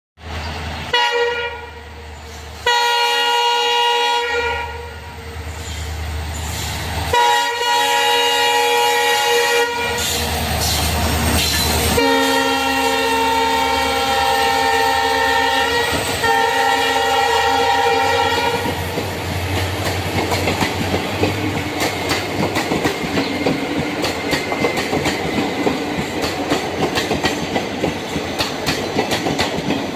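Indian Railways train horn sounding a series of long chord-like blasts over roughly the first eighteen seconds. Then the rumble and fast, rhythmic clickety-clack of the train's wheels over the rail joints.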